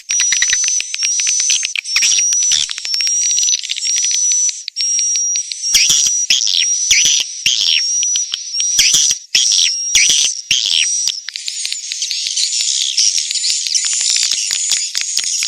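Swiftlets calling: dense, high-pitched chirping and twittering with rapid clicks running through it. This is a lure recording of the kind swiftlet farmers play to draw the birds into a nesting house.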